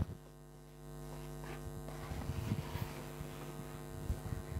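Steady low electrical hum from the recording chain. About a second in, faint rustling and small scattered clicks of handling come in.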